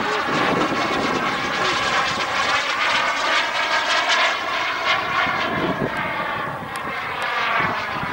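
Radio-controlled Viper jet model flying overhead, its jet engine giving a steady high whine whose pitch drifts gently up and then down as it passes.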